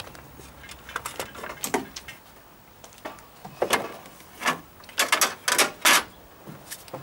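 A string of sharp clicks and knocks, about a dozen, loudest in the second half, over a faint low hum that stops about two seconds in.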